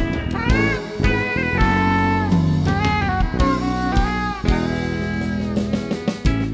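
A live band plays an instrumental passage: a lead melody with bending notes over a drum kit and steady bass.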